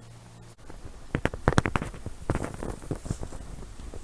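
A quick run of sharp clicks and knocks, handling noise of an airsoft rifle and its parts, loudest about a second and a half in. A low steady hum cuts off abruptly near the start.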